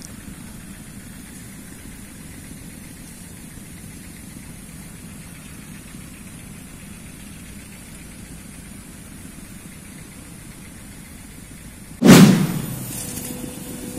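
Steady low background rumble, broken about twelve seconds in by a sudden loud knock that dies away over about a second as the camera is moved.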